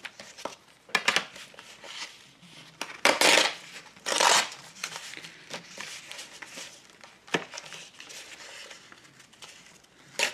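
Paper being handled and torn along a tear ruler: light rustles and clicks, with two louder ripping sounds about three and four seconds in.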